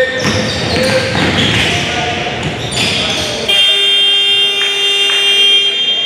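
Basketball dribbling and shoes squeaking on a hardwood gym court, then about three and a half seconds in a gym scoreboard horn sounds one steady, loud blast for about two and a half seconds, marking the clock running out at the end of the period.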